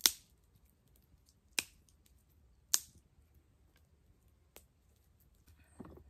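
Small wood fire of sticks crackling: four sharp pops at uneven gaps, the loudest right at the start and near the three-second mark. A short softer scrape comes at the very end.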